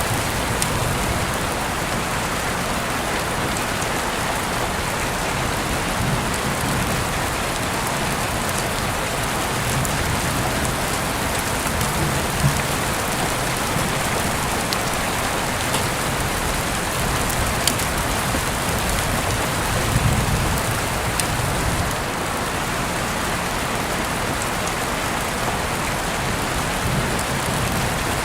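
Steady rain falling, with a few sharp drip-like ticks and some soft low swells now and then.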